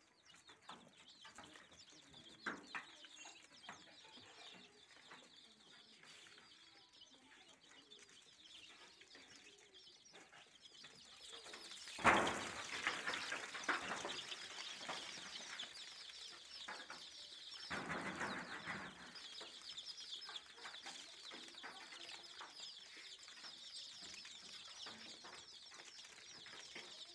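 A brooder full of Rhode Island Red chicks peeping, many overlapping high chirps at once. About twelve seconds in a sudden thump and rustle sets the peeping louder and busier, and another rustling burst of about a second follows near eighteen seconds.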